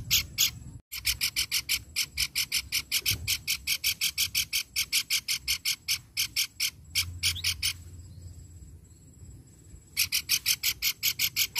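Pelanduk bukit babbler calling: a long run of rapid, harsh notes at about six a second. It stops for about two seconds, then a shorter run of the same notes follows near the end.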